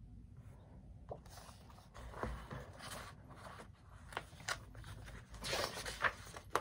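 Pages of a hardcover picture book being handled and turned: faint paper rustling and scraping with small clicks, busiest near the end.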